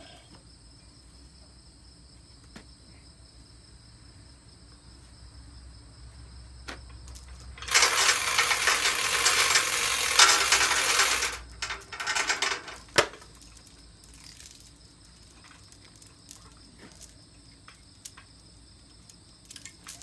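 Steel hoist chain of a chain fall rattling and jangling for about three and a half seconds as it is pulled and handled, followed by a few sharp metal clanks.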